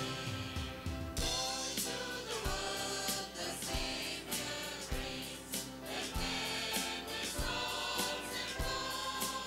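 A mixed choir sings a Christmas hymn to instrumental accompaniment, with a steady drum beat about once a second.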